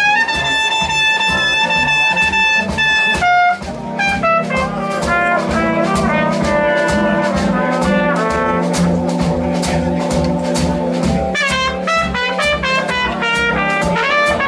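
Live blues-rock band playing an instrumental break led by a horn: one long high note held for about three seconds, then a run of shorter, moving notes over a steady drum beat.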